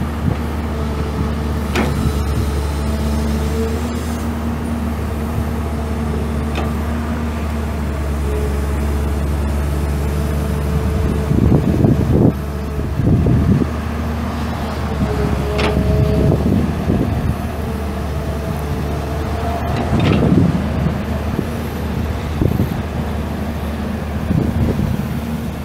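Komatsu PC200LC-8 excavator's 6.7 L six-cylinder turbo diesel running steadily, with a higher whine that comes and goes. Several short clanking or hissing bursts cut in, the loudest about 12 and 20 seconds in.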